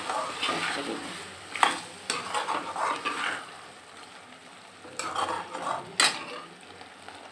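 Peas and potatoes in masala frying in a metal kadhai, stirred and scraped with a slotted metal spatula: a soft sizzle under scraping, with a few sharp clicks of the spatula against the pan, the loudest about six seconds in.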